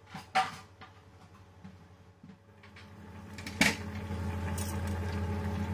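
Glass wok lid knocking against the pan as it is lifted off, with a second, louder clink about three and a half seconds in as it is set down. After that the uncovered pan's simmering grows louder and steady.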